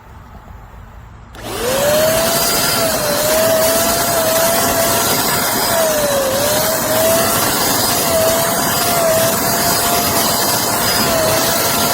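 Electric motor of a handheld power tool spinning up about a second and a half in, then running loud and steady, its whine sagging briefly in pitch now and then.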